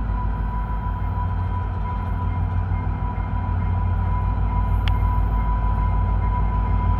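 Three EMD F40PH diesel-electric locomotives working as they pull a passenger train slowly past: a deep, steady engine rumble with a thin, steady high whine on top. A short click sounds about five seconds in.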